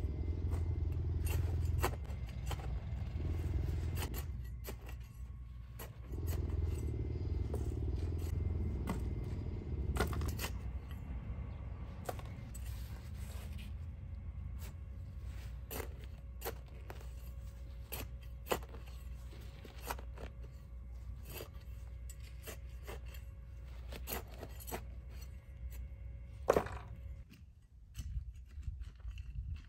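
Hand weeding tool scraping and digging in garden soil, with a scatter of small clicks and snips as roots and weeds are pulled, and one sharper knock near the end.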